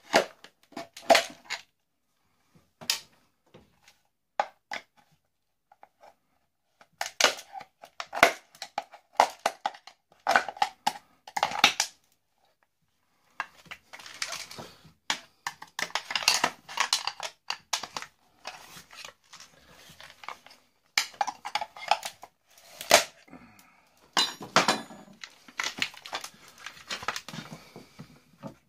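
Plastic and metal parts of a clothes iron clicking, cracking and clattering as it is pried apart and stripped by hand: a run of separate knocks and snaps, with stretches of busier scraping and rattling.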